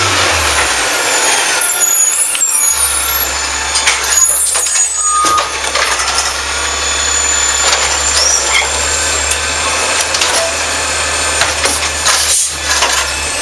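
Garbage truck working up close: a steady engine drone under a loud hiss, with high metallic squeals that are strongest in the first few seconds.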